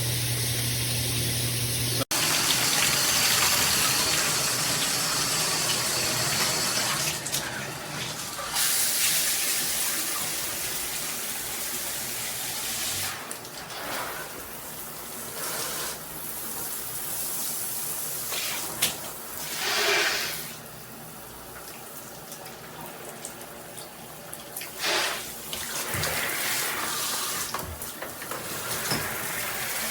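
FASTRAS LED shower head spraying water in a steady hiss, swelling louder several times and dropping to a softer spray in the second half.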